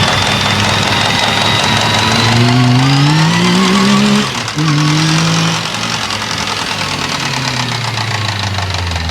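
Yamaha YXZ1000R side-by-side's engine and drivetrain running, revs climbing about two seconds in, dropping briefly just after four seconds, then falling away slowly, with a faint high whine rising and falling with them. This is the transmission knocking sound the owner is trying to show.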